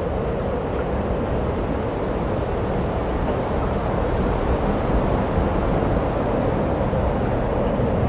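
Snowstorm wind blowing steadily through pine trees, with gusts buffeting the microphone as a low rumble.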